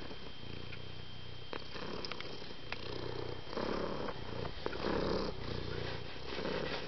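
A domestic cat purring, the rumble rising and falling with each breath about once a second.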